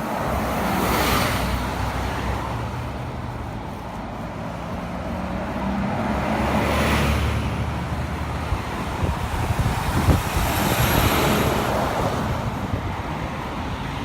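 Road traffic: three vehicles passing one after another, each a swell of tyre and engine noise rising and fading, over a steady low rumble. A few sharp knocks about ten seconds in.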